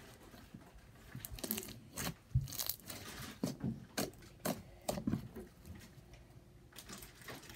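Pink Nickelodeon slime being squeezed, folded and stretched by hand on a tabletop, giving irregular wet squishes, pops and crackles. They come thickly through the middle, with one more near the end.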